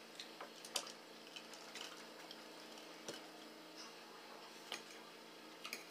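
Faint, scattered clicks of a metal spoon and fork against a glass bowl and a plate while eating, about eight light taps at irregular intervals, over a low steady hum.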